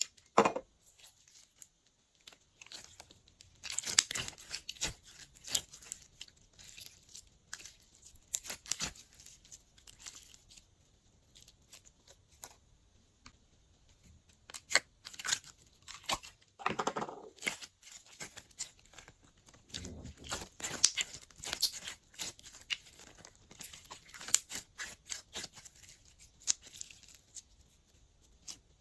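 Glossy slime being worked by hand, giving off irregular sticky clicks and pops, with a couple of softer, deeper squelches past the middle.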